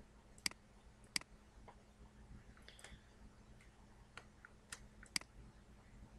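Computer mouse button clicks: about seven short, sharp single clicks spread irregularly over several seconds, four of them louder than the rest, over a faint low hum.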